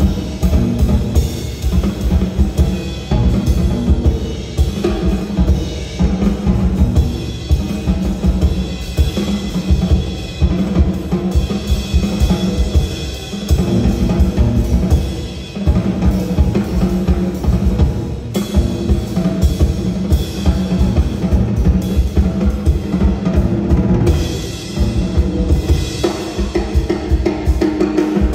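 A drummer playing a full drum kit live: busy, continuous strokes on bass drum, snare and toms with cymbals, with no gap between hits.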